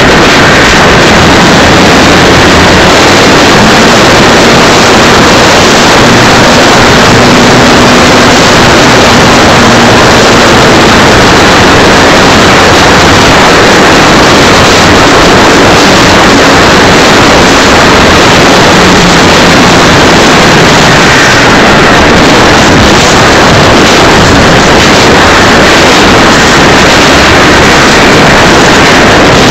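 Strong wind blowing across the microphone: a loud, steady rush, with a faint engine drone underneath at times.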